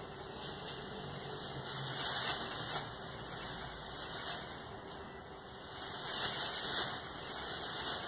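Clear plastic bag rustling and crinkling in swells as it is held open in front of a Mondial 30 cm table fan and fills with its air. Under it the fan runs steadily on its lowest speed with a faint hum.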